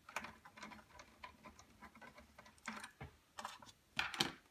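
Small screwdriver working a screw out of a laptop's metal chassis: a run of faint, irregular clicks and ticks, with a louder clatter of clicks about four seconds in.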